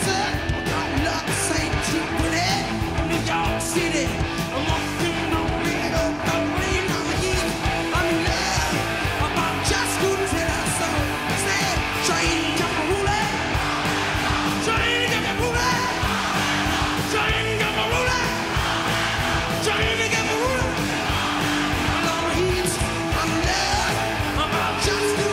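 Rock song with singing and guitar over a steady drum beat.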